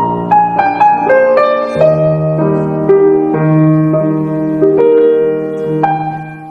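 Background piano music: a slow melody climbing over the first couple of seconds, then held chords, growing quieter near the end.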